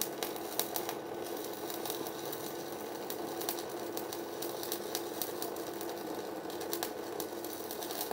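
Stick-welding arc from an Arc200 welder, crackling and sizzling steadily as an electrode burns, with frequent sharp pops. The arc holds steady although it is fed through a welding cable well over 100 m long.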